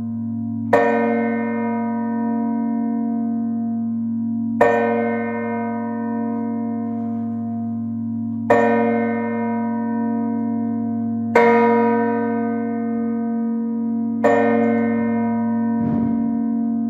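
Church bells ringing the closing peal of a feast: a bell strikes about every three to four seconds, five times, each stroke ringing on, over a steady low hum.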